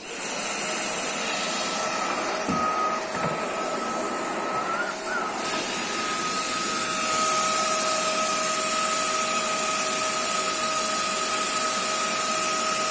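Electric vacuum cleaner switched on and running: a steady motor hiss with a constant whine, whose pitch wavers briefly about five seconds in and grows a little louder about halfway through.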